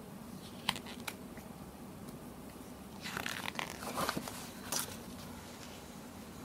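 Paper flaps of a lift-the-flap picture book being handled and unfolded: two light clicks about a second in, then a cluster of crinkling and rustling from about three to five seconds in.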